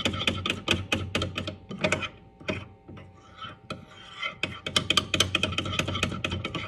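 Metal spoon stirring melted chocolate in a glass bowl, scraping and clicking against the sides about five times a second, with a pause of about two seconds in the middle. The chocolate is just about fully melted and smooth.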